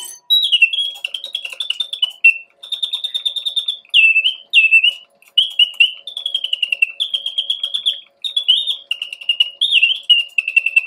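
Singing bird automaton in an enamelled alarm clock whistling mechanical bird song: warbling phrases with fast trills and up-and-down glides, broken by short pauses. The song comes from a bellows-driven whistle.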